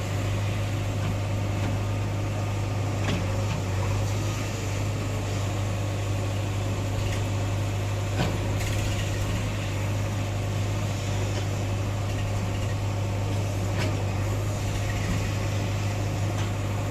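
A vehicle engine running steadily with a constant low drone, with a few brief knocks about 3, 8 and 14 seconds in.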